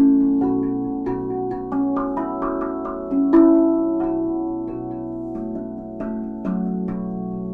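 RAV steel tongue drum in the Kotamo scale played by hand: single notes struck one after another, each ringing on long and overlapping the next. The strongest strikes come at the start and about three and a half seconds in.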